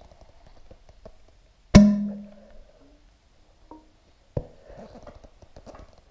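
Motorcycle telescopic fork leg being stroked by hand to bleed air out of freshly added fork oil. There are two sharp knocks from the fork about two and a half seconds apart, the first followed by a short low ringing note, with faint clicks and rubbing between them.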